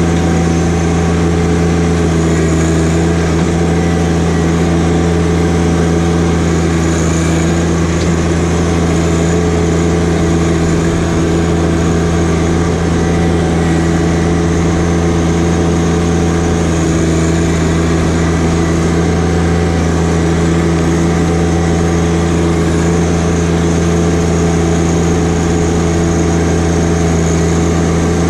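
John Deere 1025R compact tractor's three-cylinder diesel engine running at a steady speed as the tractor drives, a constant drone that holds one pitch throughout.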